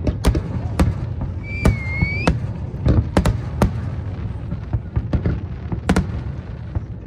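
Aerial fireworks shells bursting in quick, irregular succession: sharp bangs over a continuous low rumble. A brief whistle, rising slightly in pitch, sounds about a second and a half in.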